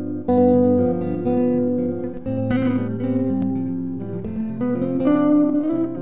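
Background music: a guitar piece of held chords and melody notes, changing every second or so.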